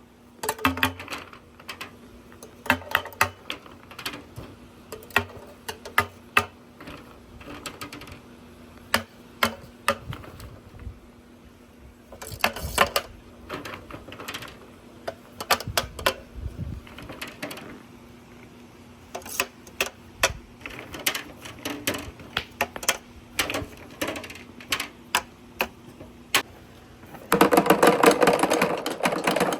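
Marbles clicking and clacking down a marble run, single sharp knocks against metal and wooden track pieces at irregular intervals. Near the end a much louder, dense, fast rattling sets in.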